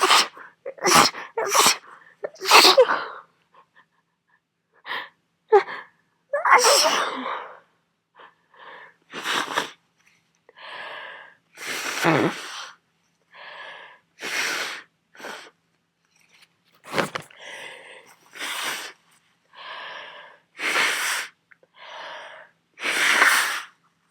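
A person with a head cold sneezing over and over in a long fit that won't stop, about twenty sharp bursts in quick succession with brief pauses between them, some louder and some softer.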